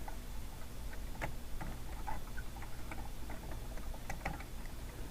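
Faint, irregular light clicks and taps of small plastic LEGO pieces being handled, over a low steady hum.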